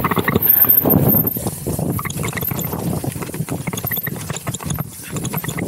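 Downhill mountain bike rolling fast over a rough dirt trail: tyres crunching on loose ground and the bike rattling with dense clicks and knocks, a little louder in the first second or so.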